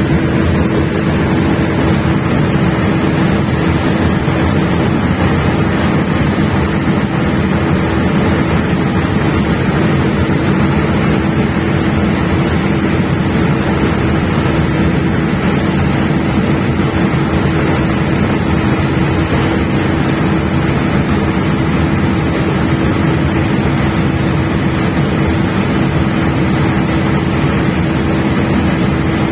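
A 500 kVA diesel generator running loudly and steadily, with a constant hum. A thin high whine comes in about eleven seconds in and steps up in pitch about twenty seconds in.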